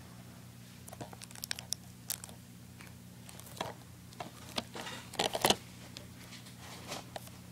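Plastic shrink-wrap on a sealed DVD case crinkling and crackling as the case is handled, in scattered sharp clicks with a louder cluster about five seconds in.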